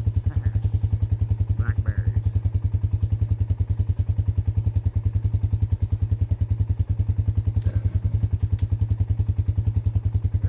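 A four-wheeler's single-cylinder engine idles with an even, rapid low pulsing.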